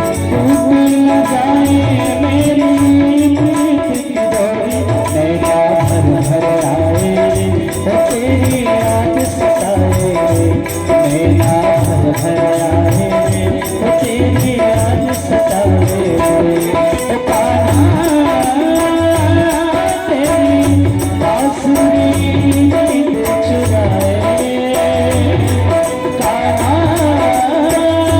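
Instrumental interlude of a Hindi devotional folk song: a steady drum beat with fast jingling percussion under a held melodic line.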